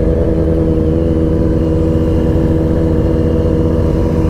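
Sport motorcycle engine running at steady revs while the bike cruises, one even engine tone that neither rises nor falls.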